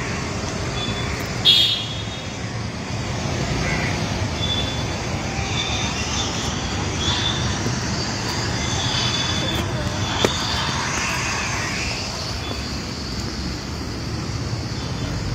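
Steady road traffic noise, with a brief loud high-pitched sound about one and a half seconds in and a few short faint high tones later.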